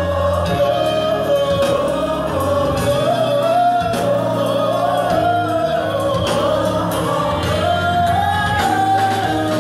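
Gospel song with a sung melody over held bass notes, filling a church sanctuary.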